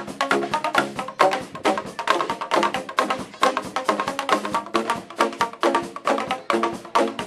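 Background music with a quick, clicky percussion beat over sustained pitched notes.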